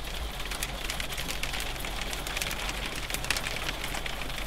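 Sleet and hail hitting a motorhome's windscreen and roof, heard from inside the cab as a dense, steady run of small ticks.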